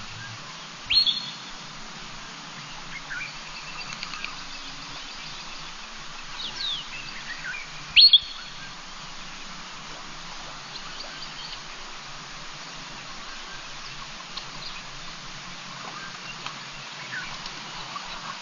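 Wild birds calling around a waterhole: scattered short chirps and whistles over a steady background hiss, with two loud, quick upward-sweeping calls, one about a second in and one about eight seconds in.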